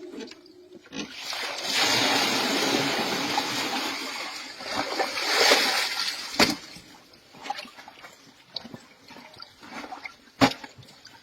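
Water gushing out and splashing for about five seconds, then a few scattered knocks.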